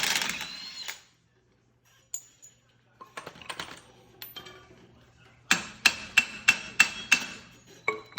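Hand tools clinking on metal parts, then a run of about six sharp hammer blows on a steel suspension part, each ringing briefly, with one more blow near the end. A loud tool noise trails off in the first second.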